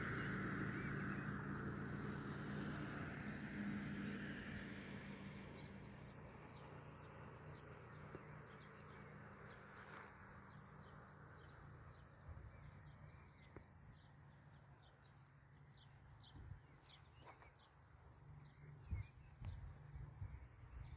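S-Bahn commuter train receding on the open line, its rumble fading away over the first several seconds. Birds chirp throughout, and a few low bumps come near the end.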